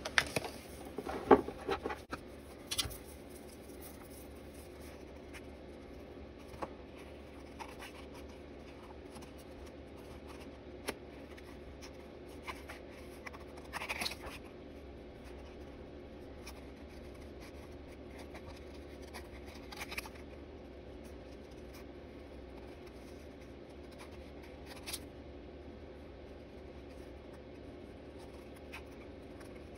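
Scissors snipping slowly around a paper cut-out, with the paper rustling as it is turned; a few sharp clicks in the first two seconds are the loudest sounds, and the rest is faint snips and rustles over a steady low hum.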